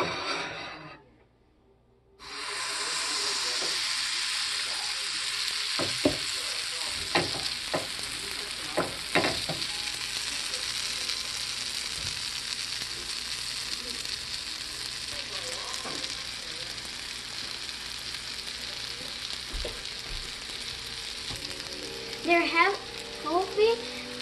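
Oat pancake batter frying in butter in a hot frying pan: a steady sizzling hiss that drops out briefly about a second in and then carries on, with a few sharp clicks around the middle.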